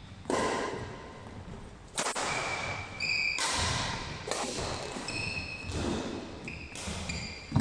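Badminton rally: several sharp racquet hits on the shuttlecock, the loudest near the end. Between them, high squeaks from court shoes on the wooden floor last about a second at a time.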